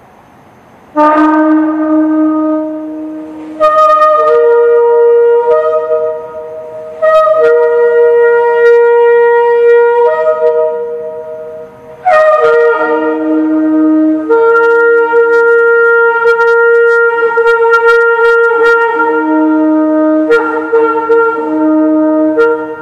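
Yemenite shofar blown in four long blasts. Each blast starts on a low note and jumps up to one or two higher notes, and the last one runs about ten seconds.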